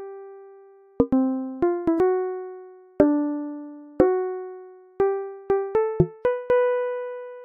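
Background music: a slow melody of single struck notes, each left to ring out and fade, with quicker runs of notes just after the first second and again after the fifth.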